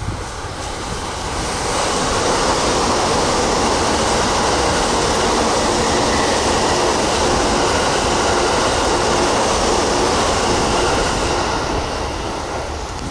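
E353 series limited express electric train passing through the station at speed without stopping. Its loud rush of wheel and running noise builds over the first couple of seconds, holds steady, then fades near the end.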